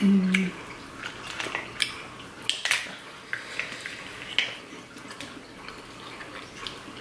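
Snow crab legs from a seafood boil being cracked and picked apart by hand: scattered sharp crackles and clicks of shell, with wet eating sounds.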